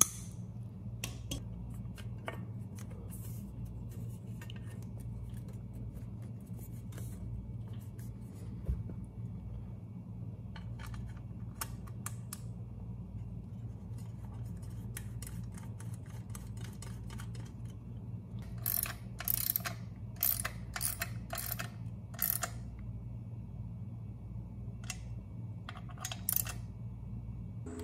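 Hand-tool work on a portable generator's alternator: scattered small clicks as a nylon zip tie is pulled and snipped with cutters and the plastic end cover is fitted, then a ratchet wrench clicking in several short bursts over the second half as the cover bolt is tightened. A steady low hum runs underneath.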